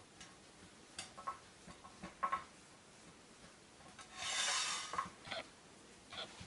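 Hands working a ball of roti dough in a tin of dry wheat flour: a few soft taps and clicks, then a louder rubbing, scraping sound about four seconds in as the floured dough is pressed and turned in the flour.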